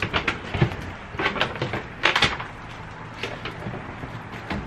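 Knocks, scrapes and clatter of stored household items being shifted by hand, as a small wooden stand with metal legs is worked free from among plastic totes and furniture; the sharpest knocks come about two seconds in.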